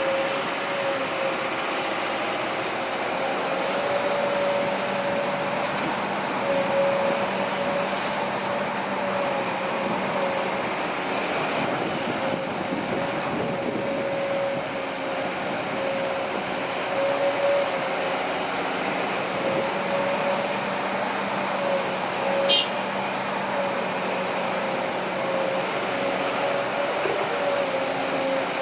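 Heavy diesel machinery running steadily, with a strong high whine that wavers slightly in pitch. A couple of brief sharp clicks.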